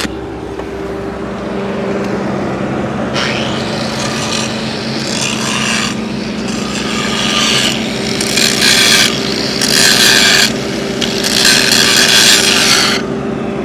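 Angle grinder running with a steady whine, ground against the steel weld bead on the pipe in about five scraping passes between about 3 and 13 seconds in, cleaning the weld between passes.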